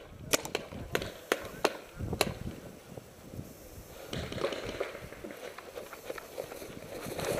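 A string of about six sharp paintball-marker shots at uneven intervals over the first two seconds or so, then running footsteps and rustling on grass.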